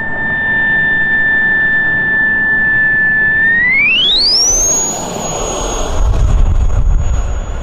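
Model jet's turbine whining at a steady pitch, then spooling up to a much higher whine about three and a half seconds in as it goes to full throttle for the takeoff roll. A low rumble of jet blast builds near the end.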